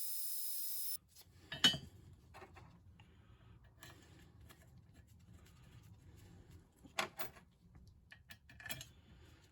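A steady high hiss cuts off abruptly about a second in. After it come faint rubbing and a few light metallic clinks as the metal parts of a bench vise are handled and rubbed down by hand.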